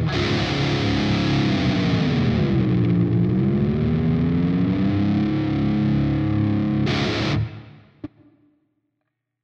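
Distorted electric guitar with a Floyd Rose tremolo, played through a Line 6 POD HD500 on its Engl Fireball amp model, holding a chord. The chord dips smoothly in pitch about two seconds in and glides back up, a whammy-bar dip. Near the end a short noisy burst comes before the sound is cut off and dies away, with one faint click.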